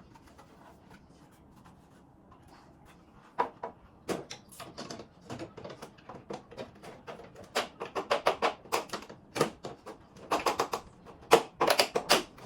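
Rapid, irregular sharp clicks and clacks from air conditioner parts being handled during cleaning. They start a few seconds in and come thick in quick clusters toward the end.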